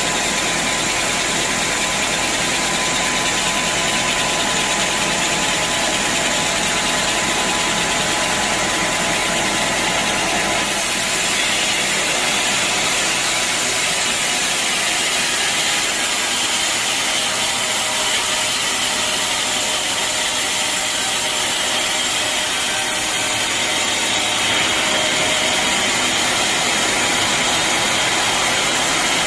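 Sawmill machinery running steadily: a loud, continuous mechanical noise whose tone shifts slightly about ten seconds in and again later on.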